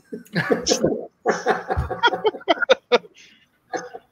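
Men laughing over a video call: a short burst, then a quick run of short laughing bursts that trails off near the end.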